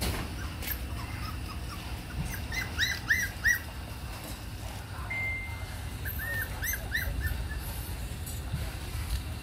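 Puppies whining in short high-pitched squeals that rise and fall, a run of several about two to three and a half seconds in, one longer steady whine about five seconds in, and another run of squeals around six to seven seconds, over a low steady rumble.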